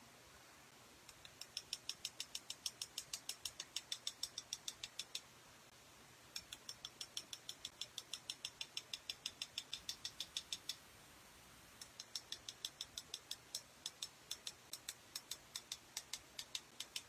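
A paint-loaded fan brush's handle tapped rapidly against a second tool handle to spatter paint, making light clicks about six a second in three runs separated by short pauses.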